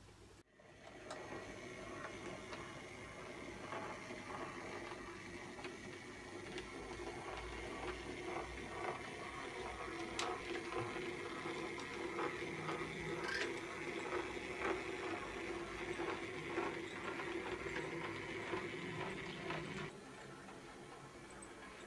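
H0e-scale C50 model diesel locomotive running past: a steady whir of its small motor and gearing with many quick clicks of the wheels on the track. It starts about a second in and drops away near the end.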